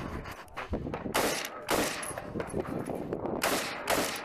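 Four close, loud gunshots in two pairs, the first pair a little over a second in and the second about three and a half seconds in, with fainter shots and range echo between them.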